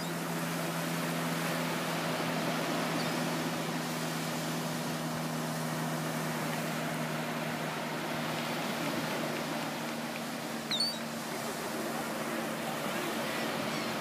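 Surf and wind on an open beach with a steady low hum that weakens about halfway through, and a short high gull call about eleven seconds in.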